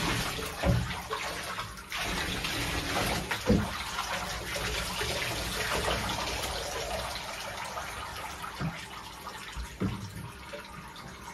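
Water pouring and splashing in a bathtub as a dog standing in it is rinsed with water poured from a plastic jug, with a few dull knocks; the splashing slowly dies down.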